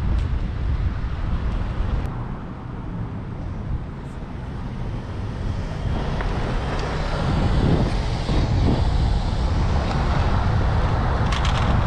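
Vehicle on the move: steady road rumble with wind buffeting the microphone, easing off about two seconds in and building up again over the second half.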